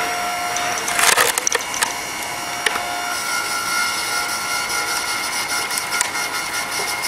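Electric hydraulic log splitter running with a steady motor-and-pump hum. About a second in, the wedge splits a log with a loud crackle of splintering wood, followed by a few smaller cracks and one more sharp snap.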